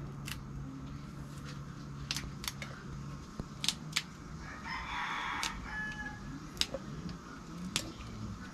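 Yard-long beans snapped by hand into short pieces, a sharp crisp snap every second or so, about eight in all. A rooster crows in the background about five seconds in.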